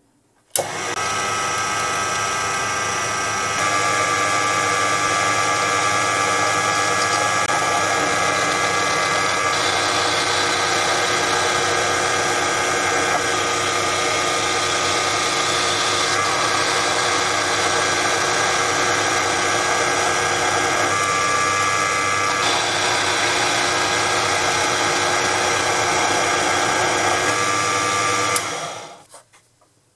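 Proxxon PD 250/e mini lathe running while turning down silver steel stock, its motor and spindle giving a steady whine of several tones. The pitch shifts a few times, and the sound fades out near the end.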